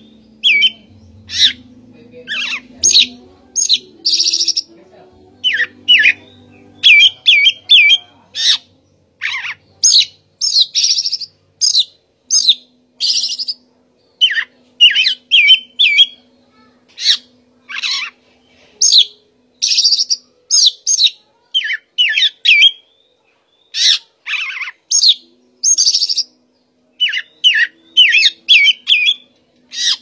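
Oriental magpie-robin singing: a long, unbroken run of loud, clear whistled notes and short warbled phrases, one or two a second, many sweeping sharply up or down in pitch.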